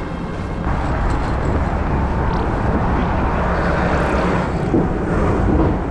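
City street traffic heard from a moving bicycle, over a steady low rumble of wind on the microphone. A louder rush of passing traffic swells about a second in and fades before the end.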